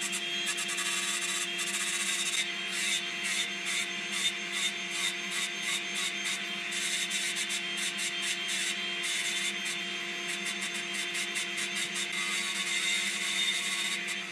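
Makita angle grinder running steadily as it grinds a curved hollow into a plywood block, with a constant motor whine under rapid, uneven scraping as the disc bites into the wood.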